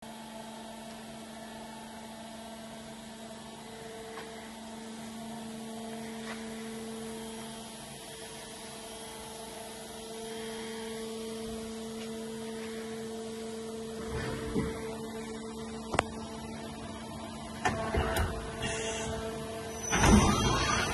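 Steady electrical hum of an idle, powered-up Doosan Puma 2500 XLY CNC lathe. Several sharp knocks and clatters come in the last seven seconds, the loudest right at the end.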